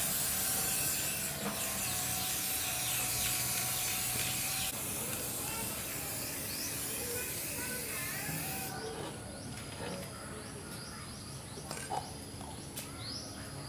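Aerosol spray-paint can hissing in one long continuous spray, a little softer after about four and a half seconds, cutting off after about eight and a half seconds. A few light clicks follow.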